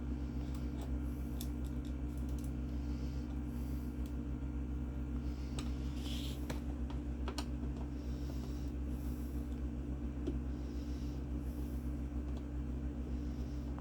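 Scattered light clicks and brief scrapes from handling a PC case and its parts, over a steady low hum.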